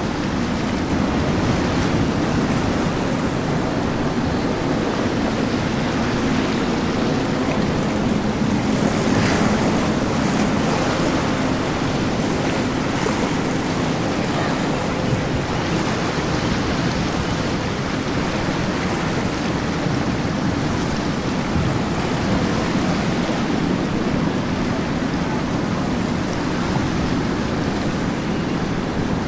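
Outboard-powered sport boats running past at speed: a steady low engine drone under the rush of hull spray and wake, with a louder splash of water about nine seconds in.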